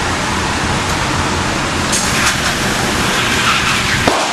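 Shooting range's motorized target carrier running as it brings the paper target back up the lane, a steady mechanical rumble that stops with a click about four seconds in.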